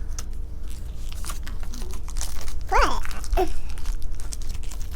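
Wooden jigsaw puzzle pieces being handled: scattered small clicks and rustles as pieces are picked up, knocked together and fitted into place.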